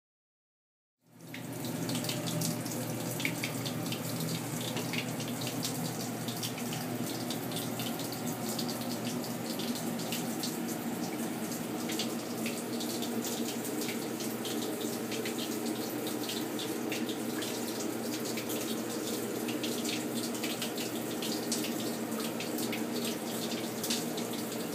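Tap water running steadily into a darkroom sink, with faint splashes scattered through it. It starts suddenly about a second in, out of silence.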